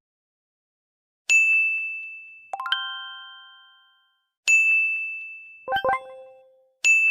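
Bell-like ding sound effect: a bright single ding rings out and fades three times, about every two to three seconds. After each of the first two comes a quick run of lower chime notes.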